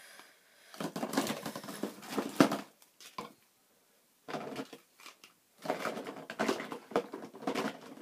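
Small plastic toy crates and bags rattling, clicking and rustling as they are rummaged through by hand, in three spells with short quiet gaps about three seconds and five and a half seconds in.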